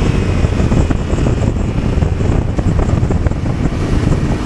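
Wind rushing and buffeting over the microphone of a Yamaha Ténéré 700 riding at around 60 to 75 km/h, with the motorcycle's parallel-twin engine beneath the wind noise.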